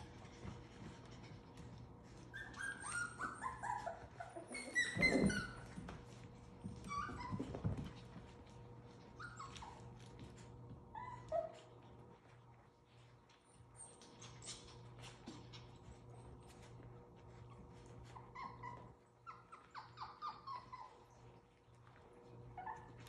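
Seven-week-old Havanese puppies yipping and whining at play: short squeaky calls that fall in pitch, coming in bouts, with one louder yelp about five seconds in. Faint scuffling clicks between the calls.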